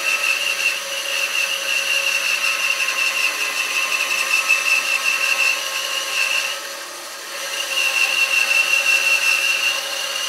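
Stationary band saw running and cutting through a thick plank of rough recycled pallet wood: a steady whine with a high tone over it. About two-thirds of the way through, the tone drops out and the sound eases for about a second, then comes back.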